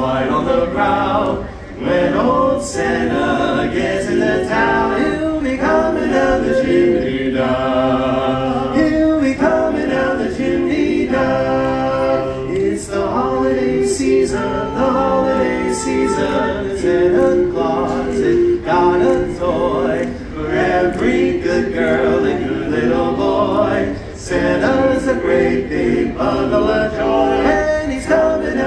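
Male barbershop quartet singing a cappella in four-part harmony, holding chords and moving through phrases with short breaks between them.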